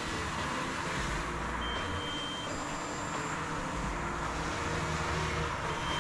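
Steady buzzing hiss of a small quadcopter drone's propellers in flight, with a few short high electronic beeps: the controller's low-battery warning, the battery nearly flat.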